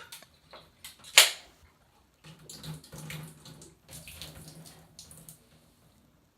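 A beer can punctured by a shotgunning tool, giving a sharp pop-hiss about a second in, followed by a few seconds of beer gushing and splashing in a failed attempt at shotgunning it.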